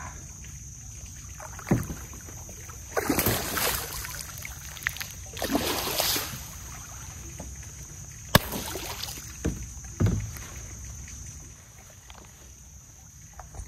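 Kayak paddle sweeping and slapping the water, throwing up spray in two long splashes, with a few sharp knocks in between.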